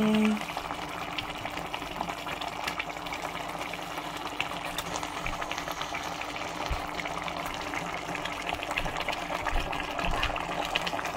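Pot of egusi soup simmering: steady bubbling and crackling, with a low steady hum underneath.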